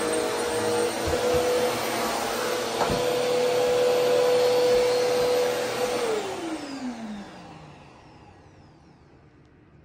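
Bagless upright vacuum cleaner running on carpet with a steady motor whine. About six seconds in it is switched off, and the motor spins down with a falling pitch, fading out over about two seconds.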